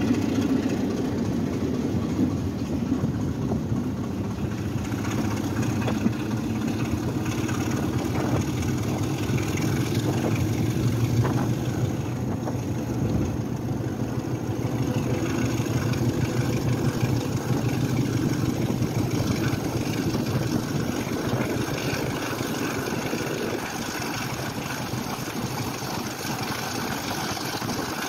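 Diesel locomotive's engine running steadily as it hauls a train, heard close from the coach behind it, over the rumble of wheels on the track with a few sharp clicks from the rails.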